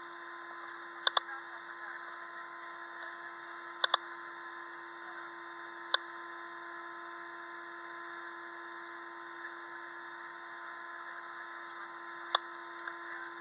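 Steady cabin hum of an Airbus A320-232 taxiing with its engines at idle, with two even tones running through it. A few sharp clicks cut in: a quick pair about a second in, another pair near four seconds, one at six seconds and one near the end.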